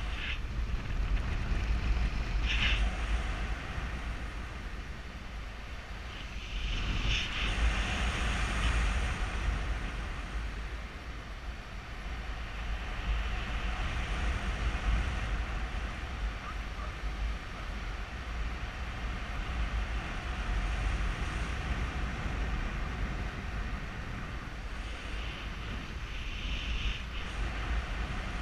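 Wind noise buffeting a GoPro Hero3's microphone in paragliding flight: a steady low rumble and rush of air that swells and eases every few seconds.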